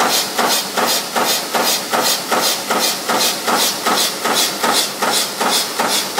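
Zipper slider spring punching press running continuously, punching a metal strip with a steady rhythm of sharp metallic clacks, about two and a half strokes a second.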